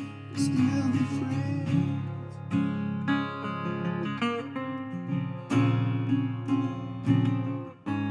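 Metal-bodied resonator guitar playing acoustic blues: picked notes and strummed chords ringing out, with a few sharp strums.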